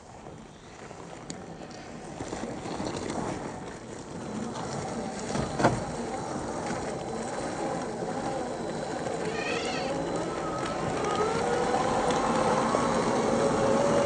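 Scale RC truck's electric drivetrain whining, the pitch rising and falling with the throttle, with one sharp knock about five and a half seconds in; the whine gets louder and higher in the second half.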